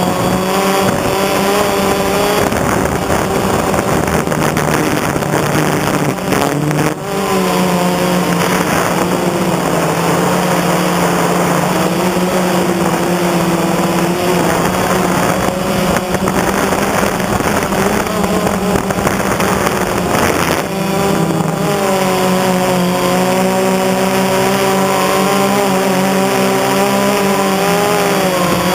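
A quadcopter drone's electric motors and propellers running up close: a steady buzzing hum whose pitch shifts up and down as the craft manoeuvres, with a brief dip about seven seconds in.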